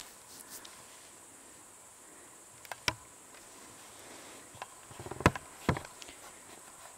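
Faint steady high-pitched chirring of insects such as crickets or grasshoppers in the forest, with a few sharp clicks about three seconds in and a cluster of clicks and a short rustle between five and six seconds in, the loudest sounds.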